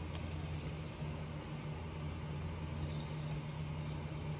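A steady low hum of background noise, with a couple of faint clicks of rigid plastic card holders being handled in the first second.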